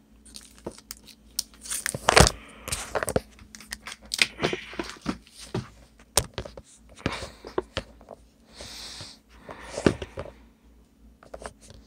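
Handling noise as a phone camera is fumbled and propped up: scattered knocks and taps against the mic, with rubbing and a stretch of rustling, crinkling wrapper or plastic noise near the end.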